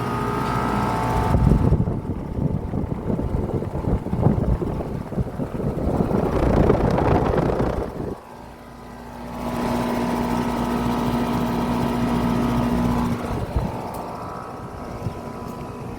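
Outdoor air conditioner condenser units running in cooling mode: condenser fan air rushing and compressor hum. About eight seconds in the sound turns to a steadier hum with one clear tone, which cuts off suddenly about thirteen seconds in.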